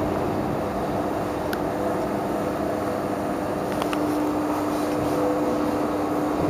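Steady hum and whir inside an Otis traction elevator car, with a low steady tone and a couple of faint clicks.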